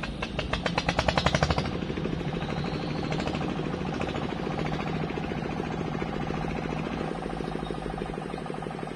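Sand-dredge engine starting up on the river: a rapid run of sharp firing beats for about a second and a half, then it settles into a steady running drone.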